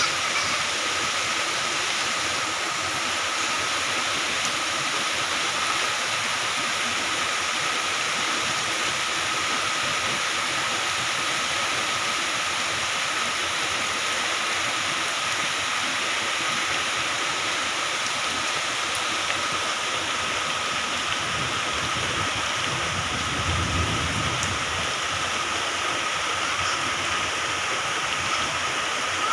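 Moderate to heavy rain falling steadily in an even hiss. A brief low rumble comes about three-quarters of the way through.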